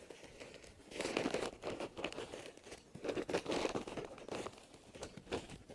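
A plastic sack rustling and crinkling while hands dig soil out of it, in irregular bursts.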